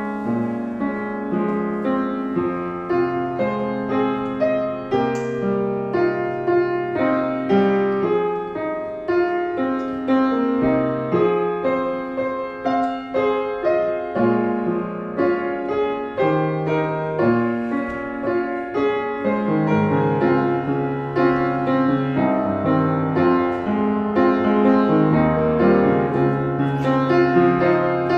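Yamaha upright piano played solo: a flowing melody over held bass notes, continuous throughout.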